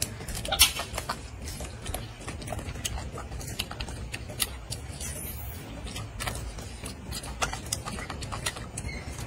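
A young golden snub-nosed monkey chewing and smacking on a piece of soft fruit close to the microphone: irregular small clicks and smacks, over a low steady rumble.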